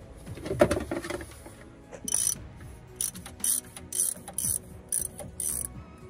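Hand ratchet loosening the cap on a Paccar MX13 fuel filter housing: the pawl clicks in a short burst with each back-swing of the handle, about twice a second from about two seconds in.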